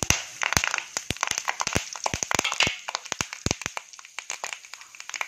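Fresh curry leaves spluttering in hot oil in a kadai: a fast, irregular run of sharp pops and crackles that thins out a little near the end.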